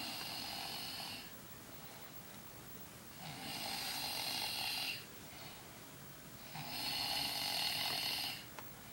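A sleeping person snoring: three long, even snores about three seconds apart, with quiet breathing between them.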